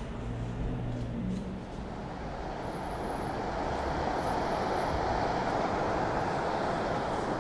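Surf breaking on a sandy beach: an even rushing noise that swells from about two seconds in. A low hum is heard in the first second and a half.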